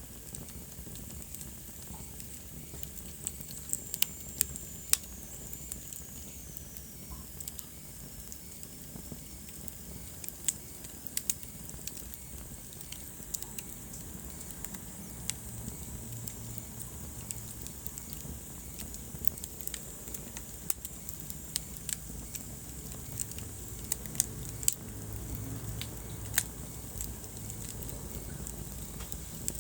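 Wood fire burning in a fireplace, crackling with irregular sharp pops over a low steady rumble of flames. A faint high whistle glides down in pitch a few seconds in.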